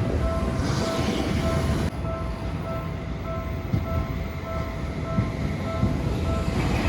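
Japanese level crossing warning bell sounding its repeating 'kan-kan' ding, a bit under twice a second, over the low rumble of a Seibu Shinjuku Line train passing the crossing.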